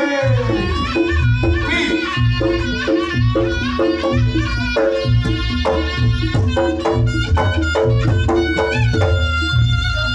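Reog Ponorogo gamelan music: the slompret (a shawm-like reed trumpet) plays a winding, bending melody over a steady beat of kendang drums and gongs.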